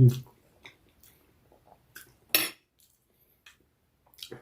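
Close-up eating sounds: a few separate bites and chews with utensils clicking against a dish, quiet in between.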